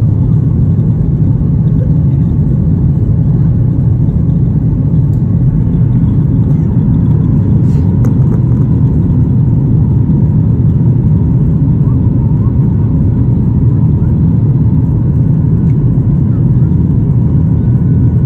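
Steady, loud cabin rumble of a Boeing 737-800 climbing after takeoff: the drone of its CFM56-7B turbofan engines and the rush of air past the fuselage, heard inside the cabin from a seat over the wing.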